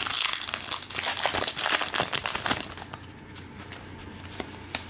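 A trading-card pack wrapper crinkling and tearing as the pack is opened, dense for about two and a half seconds, then only a few faint clicks of handling.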